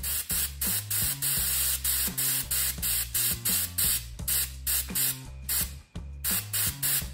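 Airbrush spraying in short, rapid bursts of hiss, a few per second, with a brief pause about six seconds in.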